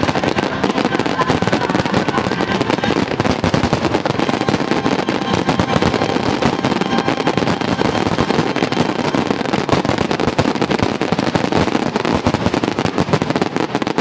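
Aerial fireworks going off in a dense, continuous barrage of rapid cracks and bangs, loud throughout.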